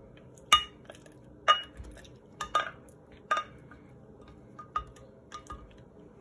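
A spatula jabbing frozen banana chunks in a glass blender jar, with the blender off: a string of sharp clinks and knocks against the glass, about one a second. They are loudest in the first three seconds and fainter later.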